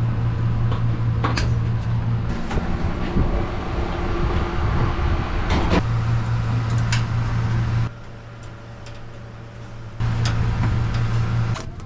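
A machine running with a steady low hum that cuts in and out several times over continuous mechanical noise. The noise drops away for about two seconds near the end, then starts again.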